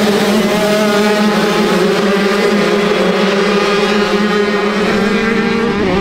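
Motocross bike engine running at steady, held revs, with a shift in the sound near the end.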